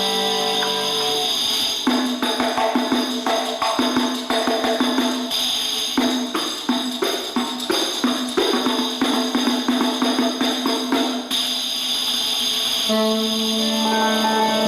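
Instrumental music: held sustained notes, then a long passage of rapid, irregular percussion strikes over a steady held note, with the sustained notes returning near the end.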